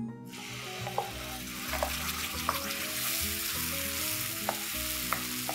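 Wet ground masala paste sizzling as it is poured into hot oil and tempered spices in a kadai. The sizzle starts about a third of a second in and keeps on while the paste is stirred, with a few sharp taps of the wooden spoon against the jar and pan.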